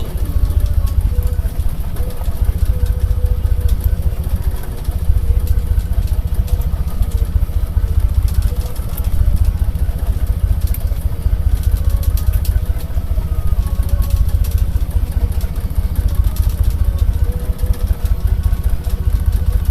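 Boat engine running steadily under way, a deep continuous rumble with a faint steady hum above it.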